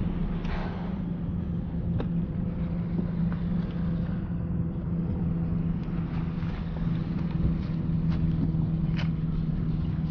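Steady low hum and rolling rumble of a vehicle in motion, with a few faint clicks.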